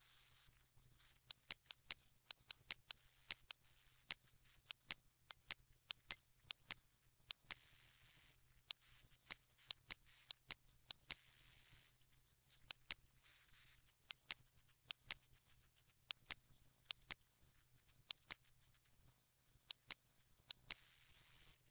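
Computer mouse buttons clicking, sharp and irregular, often in quick double clicks, over a faint steady hum.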